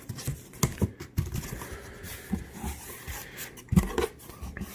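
A shipping box and its packing being opened and handled by hand: irregular knocks, clicks and rustling, with one sharper knock near the end.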